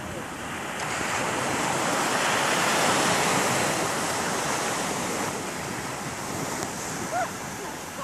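Ocean surf breaking and washing up a sandy beach, swelling to its loudest about three seconds in and then easing off. A short high chirp sounds near the end.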